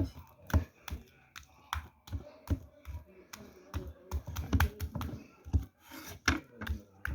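Irregular clicks, taps and soft knocks of hands working slime and handling things on a tabletop.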